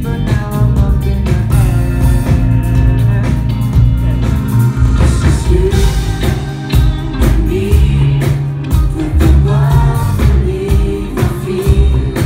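Live pop band playing: a male lead vocal over keyboards, electric guitar, bass and a steady drum beat. Heavy in the bass, as heard from the crowd.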